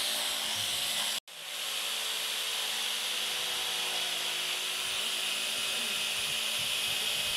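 Corded electric jigsaw cutting through a wooden plank, a steady buzzing whine of the reciprocating blade in the wood. There is a brief gap about a second in.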